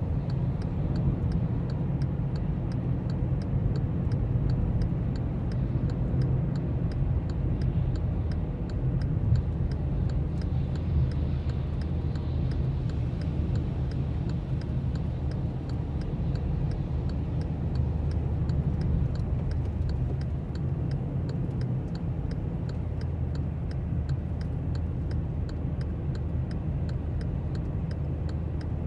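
A car's engine and cabin rumble, running steadily, with a regular light ticking throughout. The engine note drops in pitch about nine seconds in.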